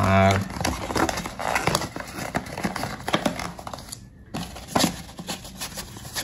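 Paper rustling and crinkling as printed instruction leaflets are handled, with many small irregular clicks and taps and a brief pause about four seconds in.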